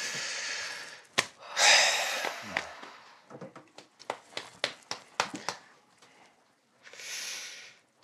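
Long breaths blown out, 'hoo', as a tension-relieving breathing exercise: three airy blows, the loudest about two seconds in. Between them comes a run of light, sharp taps.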